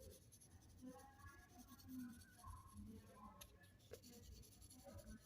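Faint scratching of a pencil on paper as a drawing is sketched.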